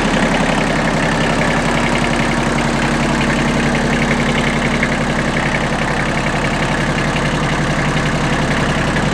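Kubota B1600's three-cylinder D950 diesel engine running steadily at a constant speed.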